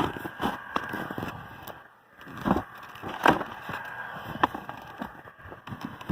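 Snow being scraped and scooped away from a car's exhaust pipe: irregular crunching scrapes, with a short pause about two seconds in and sharper strokes after it.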